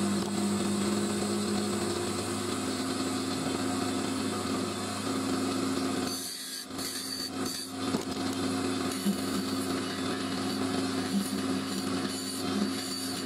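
Wood lathe running with a steady motor hum while a hand-held turning tool cuts the spinning wood, a rough scraping hiss of the cut. The cutting and hum drop away briefly about halfway through, then resume.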